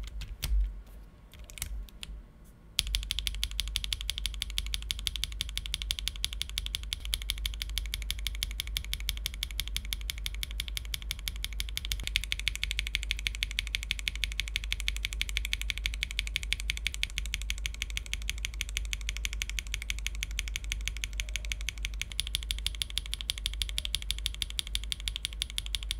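Mechanical keyboard with HMX P7 switches being typed on: a few separate keystrokes, then from about three seconds in a fast, even stream of key clicks.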